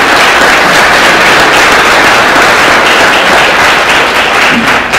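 Audience applause welcoming a guest on stage: many hands clapping at once, loud and steady.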